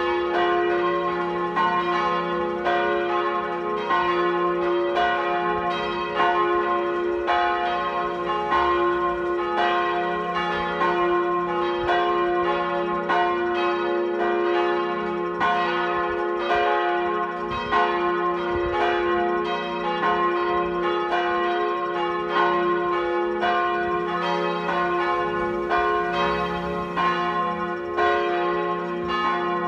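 Full peal of church bells: all the tower's bells ringing together, their strokes overlapping irregularly two or three times a second over lasting low hum tones.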